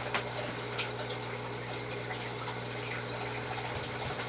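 Steady low hum with an even hiss over it, and a few faint light clicks.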